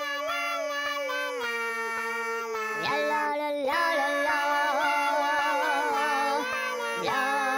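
Background music: a wordless, humming-like melody of long held notes over a steady low note that changes pitch a few times.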